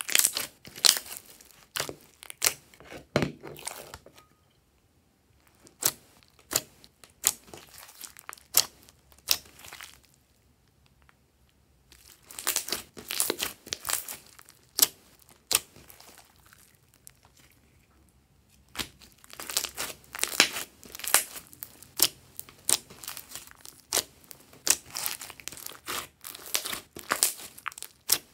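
Hands squeezing, pressing and stretching glossy slime, making runs of sharp, wet clicking and crackling pops. The runs are broken by a few short quiet pauses.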